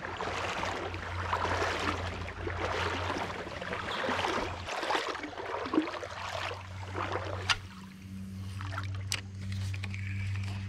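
Water sloshing and splashing from someone wading through a shallow creek. It comes in uneven surges, then falls away about three-quarters of the way through, leaving a couple of sharp clicks.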